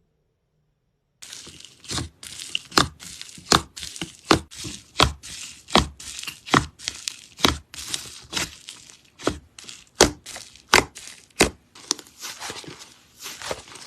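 Slime being squeezed and pressed by hand, giving sharp pops a little over once a second with crackling between them, easing into softer crinkling near the end.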